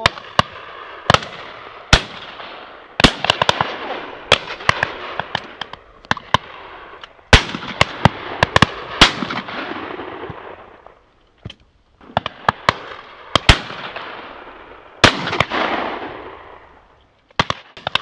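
12-bore over-and-under shotguns firing at driven game birds in a rapid string of shots. Several loud close reports stand out among many fainter shots from other guns down the line, and each report rolls away in an echo. There is a brief lull near the middle.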